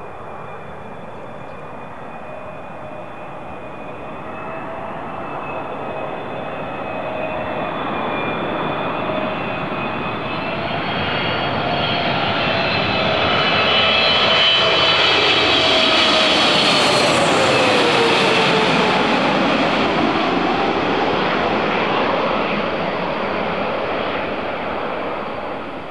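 A Boeing 777F freighter's two GE90 turbofan engines on landing approach. A steady jet whine grows louder and peaks about fifteen to eighteen seconds in as the aircraft passes, then its tones drop in pitch and it fades.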